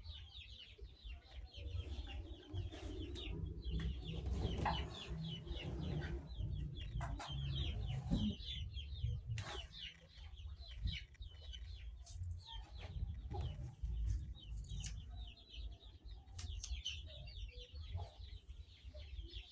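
Chickens clucking, with many short high chirps throughout, over a low rumble.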